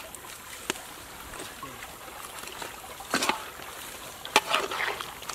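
Steady trickling, bubbling water with a few short sharp clicks and taps, about one second in, at three seconds and again near four and a half seconds.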